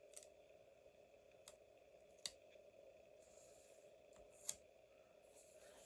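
Near silence with a few faint, sharp clicks and two short soft rustles of paper and stationery being handled on a desk.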